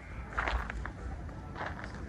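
Macaques scampering and scuffling on dry dirt and leaf litter: a few short scuffs and rustles over a steady low rumble.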